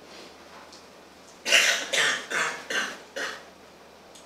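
A person coughing, a quick run of about five coughs starting about a second and a half in, the first the loudest and the rest trailing off.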